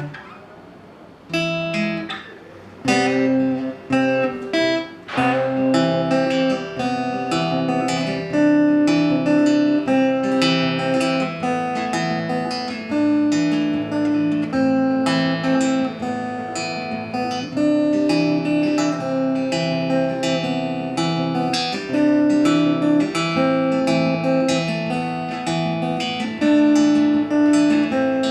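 Acoustic guitar strummed: a few separate chord strokes, then a steady strumming rhythm from about five seconds in.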